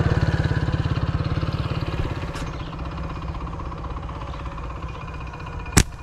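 Motorcycle engine running with a steady rhythmic putter that fades away over the first few seconds. Near the end, a single sharp snap: a slingshot shot of 8 mm steel ammo released from stainless-steel slingshot bands.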